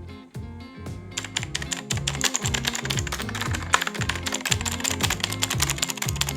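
Clicky green-switch keys of a Leaven K550 mechanical keyboard being typed on: a few keystrokes, then fast continuous typing from about a second in. Background music with a steady bass line plays underneath.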